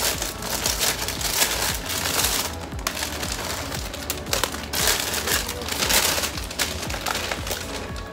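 Plastic packaging bags crinkling and rustling in irregular surges as items are pulled out of them, over background music.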